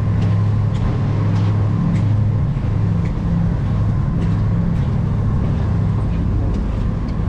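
Steady low drone of a cruise boat's engines under way, with water rushing along the hull.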